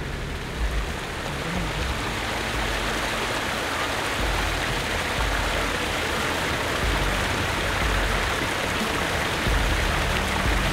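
Rushing water of a small stream as a four-wheel-drive fords it, the water noise building over the first couple of seconds and then holding steady, with the vehicle's engine running low underneath.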